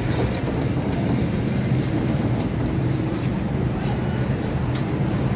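Steady low rumble of a busy food stall, with a single sharp metal click near the end as a steel spatula works a flatbread on a flat-top griddle.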